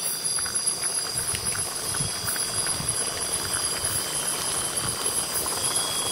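Campfire of damp wood crackling and popping under bamboo tubes of lemang, over a steady high-pitched drone of forest insects.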